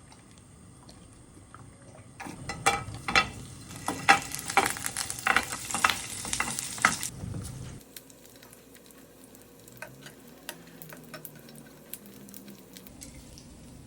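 Food frying and sizzling in a pan while being stirred, with dense crackling and clatter; it drops to fainter, scattered ticks about eight seconds in.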